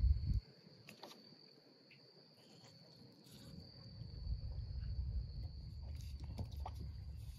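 Insects buzzing in one steady high-pitched tone, with a few faint clicks. From about three seconds in, a low rumble joins it.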